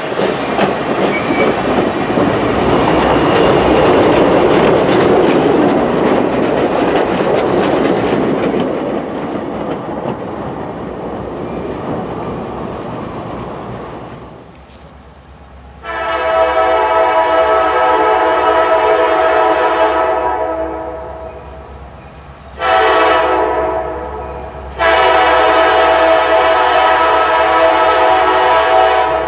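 Passenger train cars rolling past on jointed rail with wheel clatter, fading as they move away. Then a New York, Susquehanna & Western diesel locomotive's multi-tone horn sounds from a distance as it approaches: a long blast, a short one, then another long blast.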